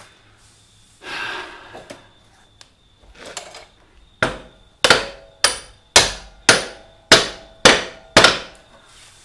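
A hammer tapping the rear axle bolt through the wheel hub and swingarm: eight sharp, ringing metal strikes about half a second apart, starting about four seconds in, after a few softer scraping sounds.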